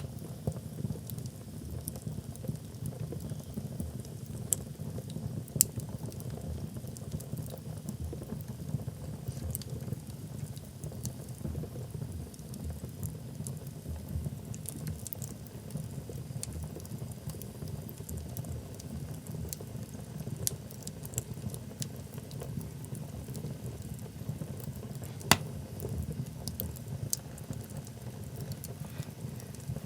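Wood fire burning in a fireplace: a steady low sound of the flames with scattered small crackles and pops of the logs. One sharp pop, the loudest, comes about five seconds before the end.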